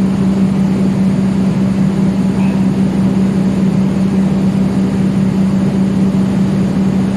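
Steady mechanical drone of a running machine, with a constant low hum that does not change.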